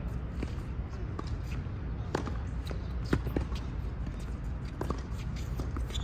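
Tennis rally on a hard court: short, sharp pops of the ball struck by rackets and bouncing off the court, about ten of them at irregular spacing, the strongest about three seconds in, over a steady low rumble.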